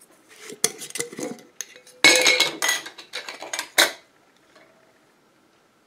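Kitchenware being handled while grated beeswax is measured out: a glass jar and a metal measuring cup and spoon clinking, rattling and scraping for about four seconds. The sound is loudest about two seconds in and ends with a sharp knock.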